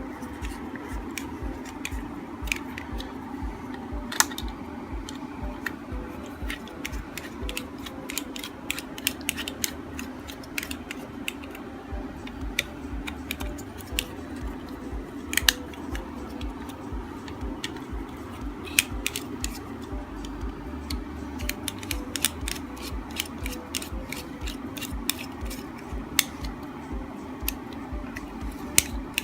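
Irregular sharp metallic clicks and taps of tools working on a three-jaw lathe chuck as its body bolts are tightened evenly, over a steady low hum.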